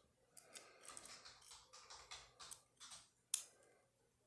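Faint small metal clicks and scrapes from a lock cylinder being handled and taken apart, with one sharper click a little over three seconds in.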